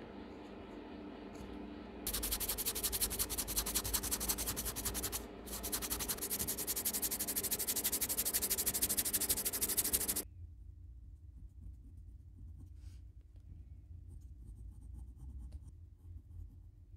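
Sandpaper rubbing on a carved basswood lure body in quick, gritty strokes. It starts about two seconds in, pauses briefly near the middle, and stops abruptly after about ten seconds. Then comes a faint scratching of a pencil tracing around a paper template on the wood.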